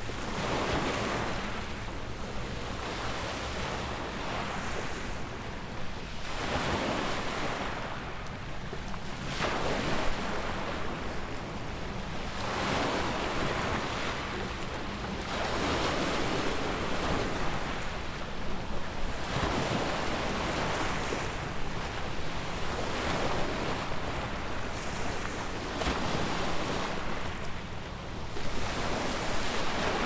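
Small waves washing onto the shore, swelling and fading every few seconds, over a steady low rumble of wind on the microphone.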